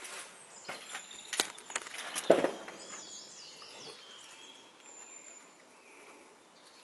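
Footsteps and handling knocks from a handheld camera walked over muddy ground, a cluster of sharp knocks in the first couple of seconds, the loudest a little over two seconds in. Birds chirp faintly in the background afterwards.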